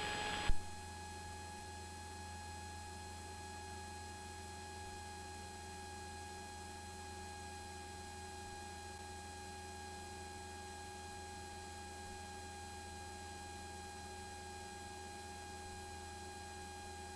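Faint steady electrical hum with a few thin, unchanging tones from the recording's audio feed, with no speech over it. A brief blip comes about half a second in.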